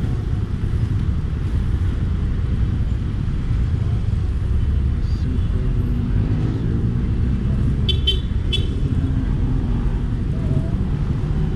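Steady low rumble of wind and road noise while riding an electric scooter through slow traffic. A quick run of short, high beeps comes about eight seconds in.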